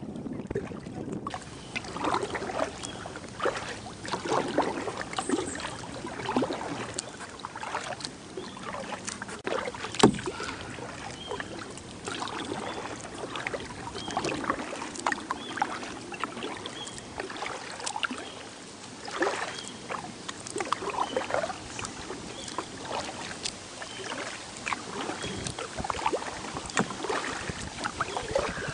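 Kayak paddle strokes dipping and splashing in the river about once a second, with water dripping off the blades. About ten seconds in there is one sharp knock, typical of the paddle shaft hitting the kayak's hull.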